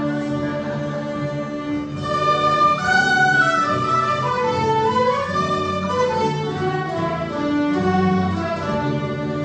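A mixed-instrument folk ensemble playing a traditional Scottish tune. The melody falls and then climbs again near the middle.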